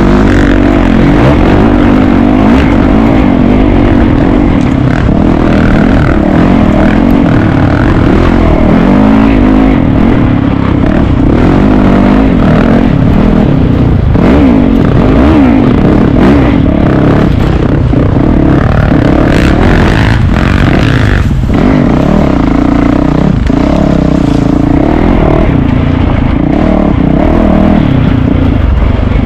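Racing dirt bike engine ridden hard off-road, its pitch rising and falling constantly as the throttle is worked, with occasional knocks.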